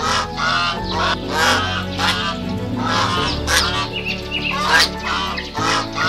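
Waterfowl calling over and over in short honks, roughly two calls a second, over background music that has sustained low chords.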